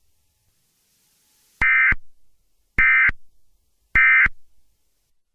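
Emergency Alert System end-of-message code: three short, identical digital data chirps about a second apart, signalling that the alert message is over.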